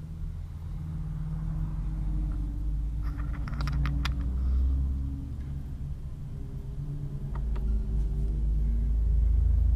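A low, steady hum with a few held tones that shift slowly, getting louder near the end. A few light clicks and clinks come a few seconds in and again later, as aluminium plates are handled and set into a milling-machine vise.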